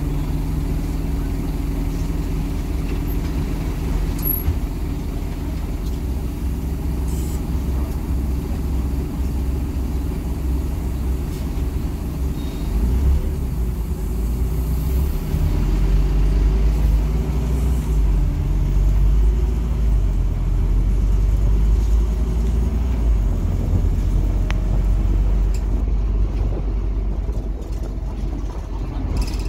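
Scania NewOmnicity city bus heard from inside the passenger cabin: the engine hums steadily at idle while stopped, then about halfway through the low rumble grows louder as the bus pulls away and gathers speed.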